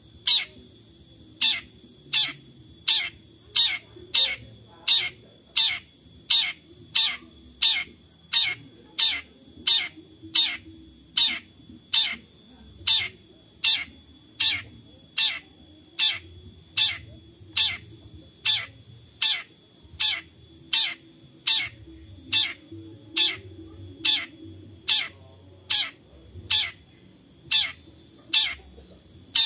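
Long-tailed shrike (cendet) giving its 'toet toet' call: one short, harsh note repeated at a steady pace, about one call every 0.7 seconds.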